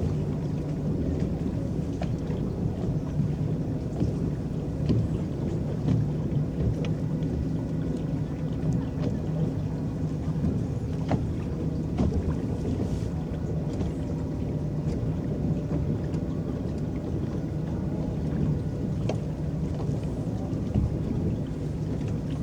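Electric boat under way on a lake: a steady low hum with water rippling and a few scattered small ticks and splashes.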